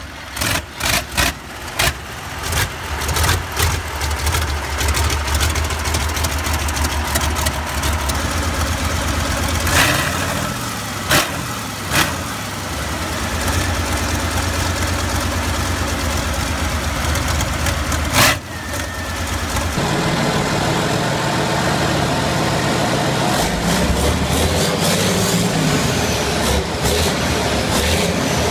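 Air-cooled 19-litre 90° V12 Tatra diesel cold-starting on a test stand: a ragged run of firing pops for the first few seconds, then it catches and settles into a steady idle, with a few sharp knocks. About twenty seconds in, the sound changes to another Tatra V12 running in a truck.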